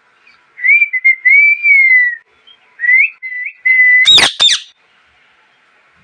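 Indian ringneck parrot giving a run of drawn-out whistled notes, then a loud, shrill two-part screech about four seconds in.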